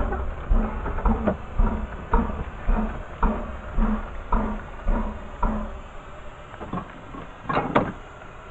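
Narrow-gauge steam locomotive at close range making even mechanical beats, about two a second, that fade and stop partway through as it comes to rest. A single short, louder burst follows near the end.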